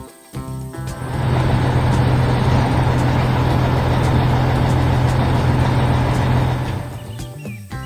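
Heavy construction-vehicle engine sound effect: a loud, steady engine rumble with a deep hum. It comes in about a second in and fades out near the end, with music playing on either side.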